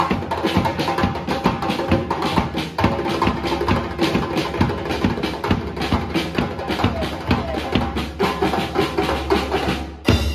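Percussion ensemble of djembes, a stick-beaten wooden barrel drum, a tambourine and a drum kit with snare and cymbal, playing a fast, steady rhythm. It closes on one loud final hit near the end.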